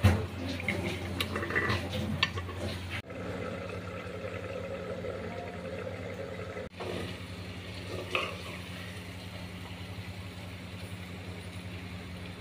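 A metal spoon clinks and scrapes against a metal cooking pan of mutton udder masala, with several sharp clicks in the first two seconds or so and a few softer scrapes later, over a steady low hum.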